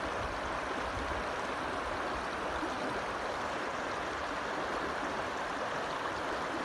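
Steady rush of river water running over a rocky shoal, a constant even hiss with no change in level.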